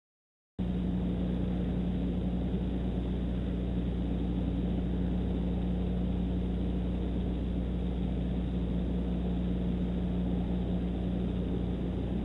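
Wind blowing across an eagle-nest webcam's outdoor microphone: a steady low rumble with a constant hum, cutting in abruptly about half a second in.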